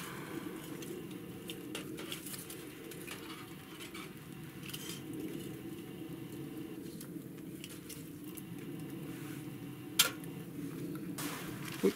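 Small wood fire burning in a metal fire stand, with scattered light crackles as it is stirred with metal tongs. About ten seconds in comes a single sharp metallic clack, with another near the end.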